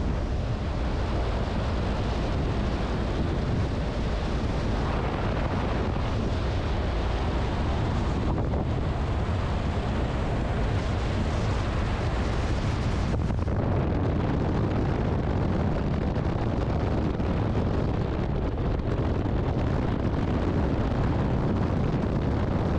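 Steady wind rush buffeting the microphone of a motorcycle at road speed, with the bike's running and tyre noise underneath.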